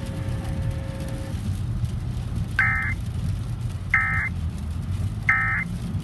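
Three short, identical electronic data bursts from the car radio, about a second and a third apart: the Emergency Alert System end-of-message code that closes the tornado warning. Underneath is a steady low rumble of road and engine noise inside the moving car.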